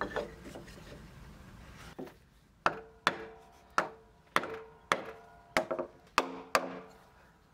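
Wooden mallet knocking a wooden wedge into the scarf joint (trait de Jupiter) of a timber beam: a quieter start, then about ten sharp knocks at roughly two a second from about two and a half seconds in, each with a brief ringing tone from the wood.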